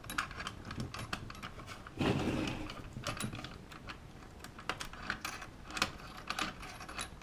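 Lock hardware being handled: a string of small metal clicks and light rattles, with a heavier knock about two seconds in.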